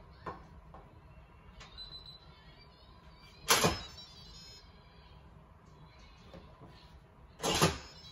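Instant Pot lid being twisted and seated on the pot, metal against metal: two short, loud scrapes about four seconds apart.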